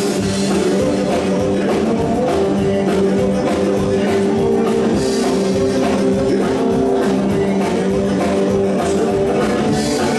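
Rock and roll music: electric guitar, double bass and drums playing at a steady beat.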